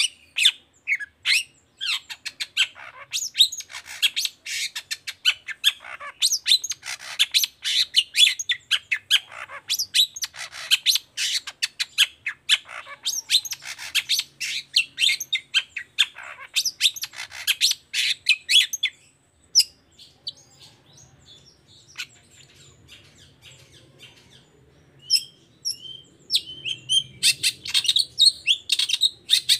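Long-tailed shrike (cendet) singing a fast, dense run of sharp chirps and harsh squawking notes, breaking off about two-thirds of the way through into a few seconds of scattered notes, then starting up again near the end.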